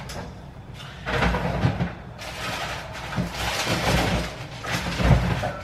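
Refrigerator door pulled open and things moved about inside, with several soft knocks and noisy handling sounds.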